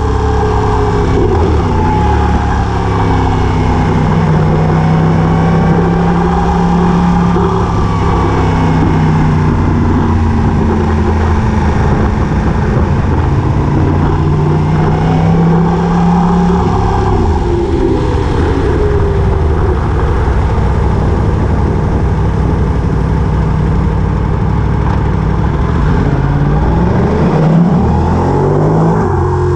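A vehicle engine running steadily and loudly, its pitch rising and falling as it changes speed.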